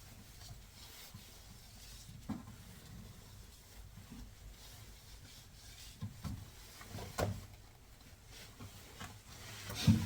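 Hands working a detergent-lubricated rubber washing machine door boot gasket into place: faint rubbing and handling, with a few light knocks about two seconds in and again around six to seven seconds in.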